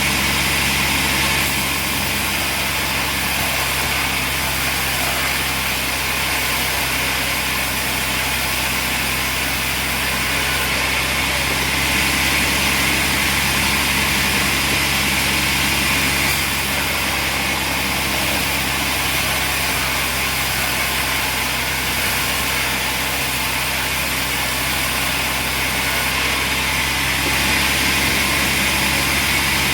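Sawmill machinery running steadily: a constant motor hum with a hiss over it, with no distinct cuts or knocks.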